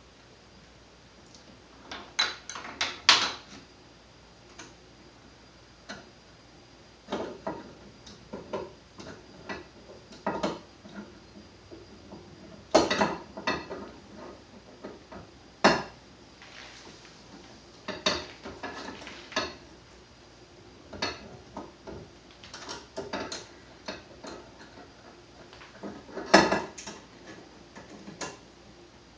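Irregular metallic clinks, clanks and taps of tools and parts being handled as a handguard rail is fitted onto an AR-15 upper receiver, some in quick clusters of several knocks.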